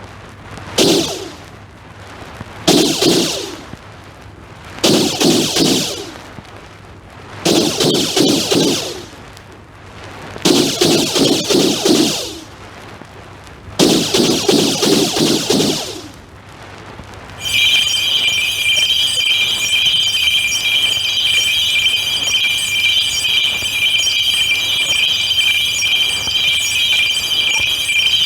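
Synthesized science-fiction sound effects played from a vinyl flexidisc. First comes a series of six electronic blasts, each with a rapid rattling pulse, at widening gaps. About two-thirds of the way in they give way to a steady, high electronic buzzing tone.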